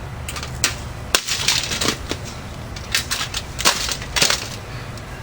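Lasko box fan being smashed apart: a quick, irregular series of sharp knocks and cracks, about a dozen in all, with small clusters of clatter between them.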